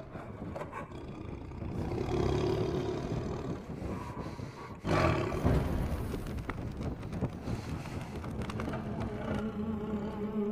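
Lion roaring and growling as a film sound effect, with a sudden loud roar about halfway through. Steady music notes come in near the end.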